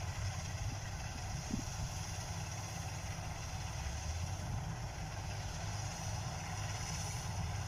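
Kubota rice combine harvester running steadily as it cuts, heard as an even low engine drone.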